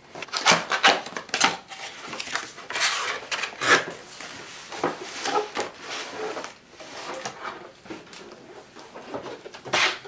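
Cardboard box being opened and emptied by hand: flaps pulled open, cardboard scraping and knocking, and a projector in inflated plastic air-column packaging slid out with plastic rustling. Irregular rustles and sharp knocks, the loudest just before the end.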